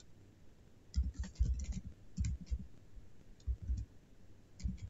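Computer keyboard being typed on: short bursts of a few key clicks, with pauses between.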